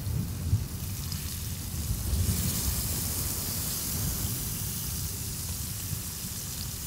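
Grouper fillets sizzling as they are laid into hot butter in a cast-iron skillet; the hiss grows louder about two seconds in as more fish goes into the pan. A low rumble runs underneath.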